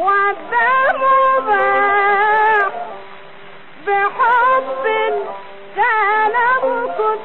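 A woman singing an Egyptian Arabic song in three long, ornamented phrases, with a quieter sustained instrumental accompaniment filling the gaps between phrases.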